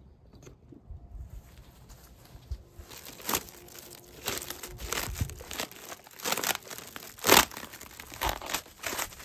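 Plastic wrap crinkling and tearing as it is pulled and cut off a package. It starts about three seconds in as a series of short rips and rustles, with the loudest tear about seven seconds in.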